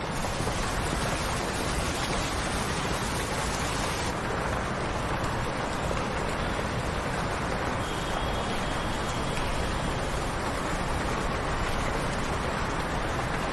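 Steady rushing noise with no distinct events; its upper hiss dulls about four seconds in.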